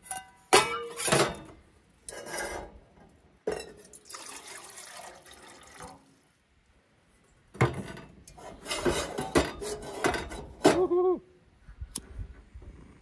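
A metal camping pot and its lid clink on a camp stove's grate, then water is poured from a bottle into the pot. A match is struck once near the end.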